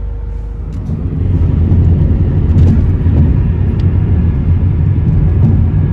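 Car engine idling steadily, then from about a second in a loud, steady low rumble of cars at highway speed.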